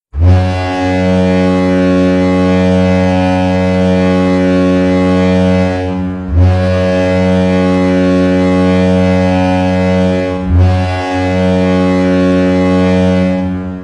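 NHL arena goal horn, a deep air horn, sounding three long blasts with brief breaks between them: the first about six seconds, then about four, then about three.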